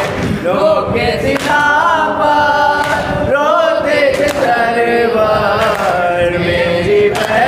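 Male voices chanting a noha, a Shia mourning lament, unaccompanied and in chorus, with long wavering held notes.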